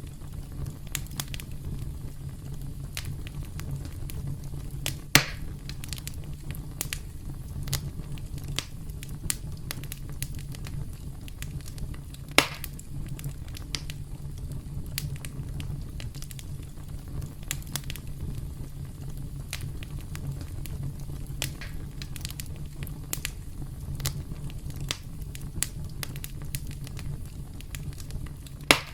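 Campfire burning with a steady low rumble and many small crackles, with three louder sharp pops: about five seconds in, around twelve seconds in and near the end.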